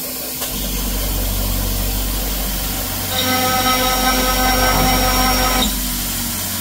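Spindle of a home-built PrintNC CNC running with the hiss of its air-blast coolant. About three seconds in, the end mill cuts into the 6061 aluminium plate with a loud pitched squeal for about two and a half seconds, which then stops suddenly. The squeal comes from stock that had not been glued down.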